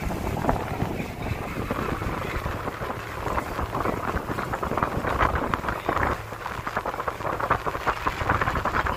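A tour boat's motor running steadily under way, with wind buffeting the microphone in uneven gusts.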